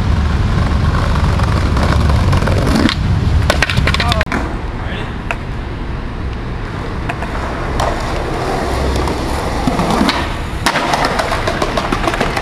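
Skateboard wheels rolling over pavement with a steady rumble, broken several times by the sharp clack of the board popping and landing.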